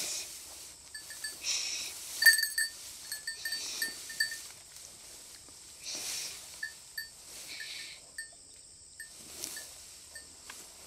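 Footsteps swishing through tall dry grass and weeds, with a scatter of light, high metallic clinks in quick irregular runs.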